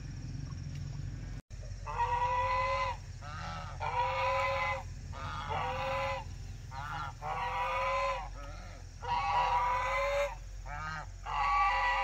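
Farm poultry calling: a run of about six long calls, each around a second, with shorter wavering calls between them, starting about two seconds in over a steady low hum.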